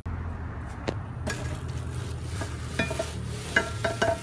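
Clear plastic wrapping crinkling and rustling as a boxed motorcycle alloy wheel is handled, with a few light knocks and a short squeak near the end. A steady low hum runs underneath.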